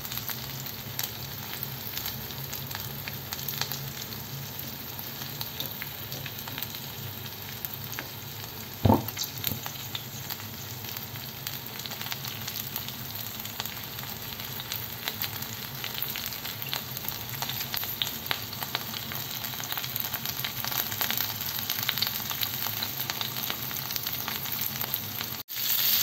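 Marinated chicken skewers sizzling on a ridged grill pan, a steady crackle and spit over a low hum. There is a single loud knock about nine seconds in.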